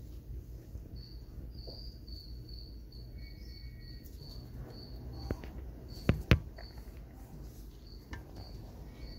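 Feeder crickets chirping, a steady run of short high chirps about three a second. A few sharp knocks come around five to six seconds in, the loudest of them near the end of that stretch.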